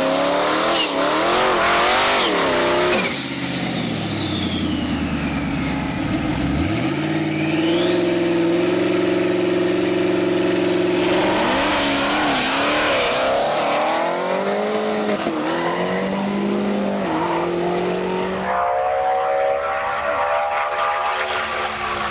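Supercharged Ford Mustang with a manual gearbox revving at the start line, then holding its revs with a rising whine. About 12 seconds in it launches and pulls hard through several gear changes, the engine note dropping back at each shift.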